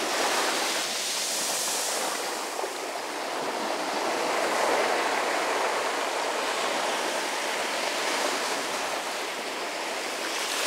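Surf washing up a sandy cove among boulders: a steady rushing hiss of breaking and receding foam that swells slightly about halfway through.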